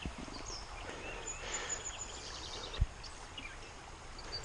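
Quiet creekside ambience: a steady low wash of flowing water with a few short, high bird chirps, and one brief low thump a little past the middle.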